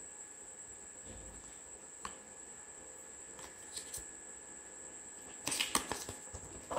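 Printed paper cards and booklets handled and shuffled by hand: a few light taps and rustles, then a louder burst of paper rustling near the end. A faint steady hiss with a thin high-pitched tone sits underneath.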